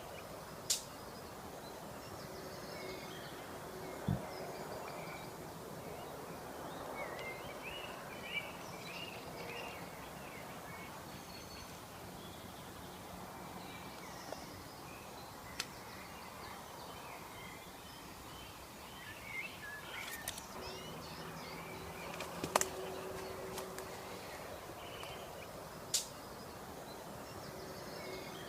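Woodland ambience: small birds chirping and twittering on and off over a faint steady hum. A handful of sharp isolated clicks sound at intervals throughout.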